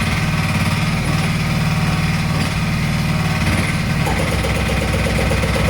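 Excavator diesel engine running steadily; about four seconds in, the hydraulic hammer starts again with rapid, rhythmic blows over the engine.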